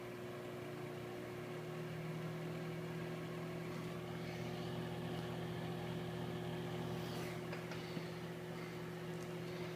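Microwave oven running: a steady electrical hum with its fan, the hum growing a little fuller about a second and a half in.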